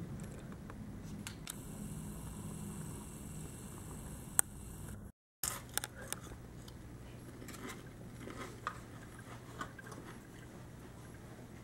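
The low rumble of a departing jet airliner fades out, broken by a sharp click about four seconds in. After a brief cut in the recording, a steady low hum and scattered small clicks of handling noise follow.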